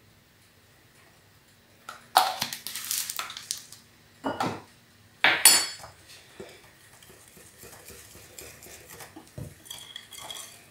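A metal spoon clattering and clinking against a glass mixing bowl, one clink ringing, then a wire whisk beating thin batter in the bowl with quick, light scraping ticks from about six seconds in.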